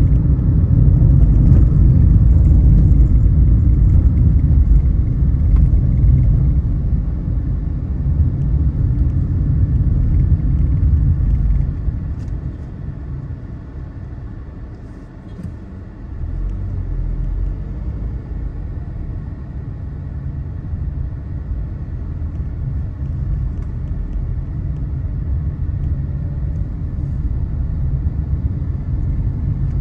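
Car driving on a road: a steady low rumble of engine and tyres that eases off about halfway through, dips briefly, then carries on a little quieter.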